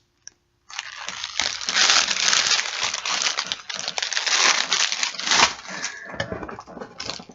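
Plastic or paper packaging crinkling and rustling as it is handled, loudest in the middle and fading near the end.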